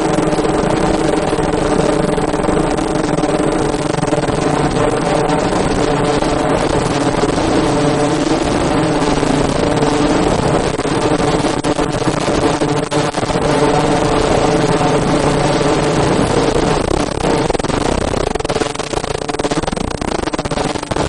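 Automatic fish-shaped mask-making machine running steadily, giving a loud, continuous mechanical hum.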